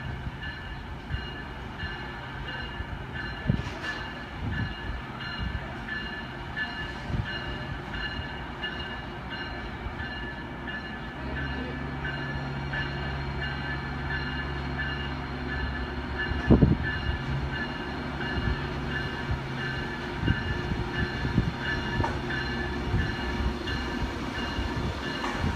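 R156 diesel locomotives of a work train (MPI MP8AC-3) approaching slowly, the low diesel engine hum growing stronger partway through. Occasional clanks of wheels over the track joints, one sharp clank about two-thirds of the way in.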